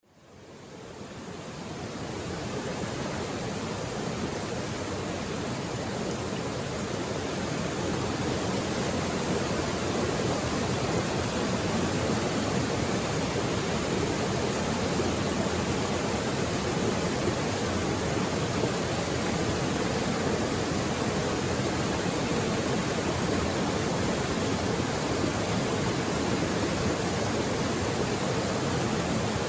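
Mountain creek water flowing in a steady, even rush, fading in from silence over the first couple of seconds.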